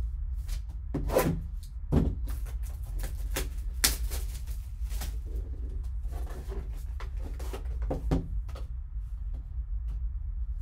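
Cellophane shrink wrap crackling as it is torn off a sealed trading-card box, with irregular taps and scrapes of cardboard boxes being handled, over a steady low hum.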